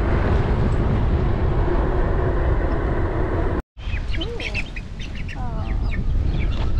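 Strong wind buffeting the microphone, with a faint steady hum under it. About two-thirds of the way in it cuts to farmyard poultry calling in short, repeated, harsh calls over lighter wind noise.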